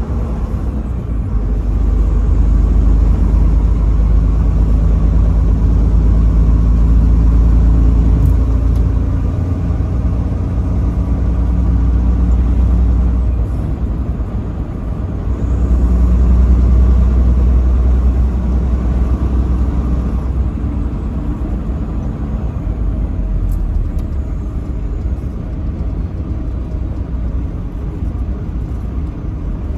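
Truck engine and road noise while driving: a deep, steady rumble that grows louder twice, for about ten seconds from near the start and again for a few seconds past the middle.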